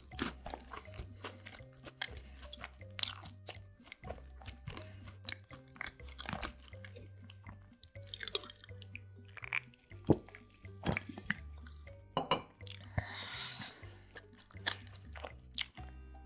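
Close-miked chewing and crunching of a sandwich: many short wet and crisp mouth sounds, with a drink from a can partway through. Soft background music with a steady looping bass line runs underneath.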